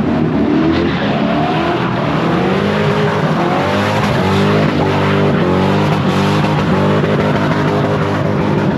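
Lexus sedan drifting in circles, its engine held at high revs that rise and fall as the rear tyres spin and squeal on the asphalt.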